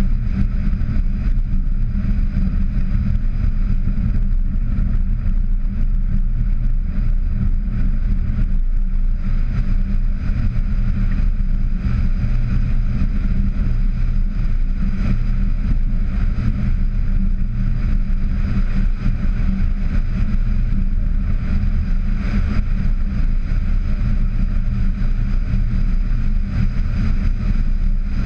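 Steady low rumble of a VW Tiguan driving on a gravel track, tyre and wind noise picked up on the bonnet outside the cabin.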